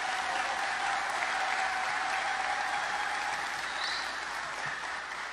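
Audience applauding, a dense, steady clapping that thins slightly near the end.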